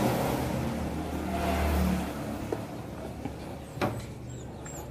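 Low engine rumble that fades after about two seconds, with a single sharp knock a little under four seconds in.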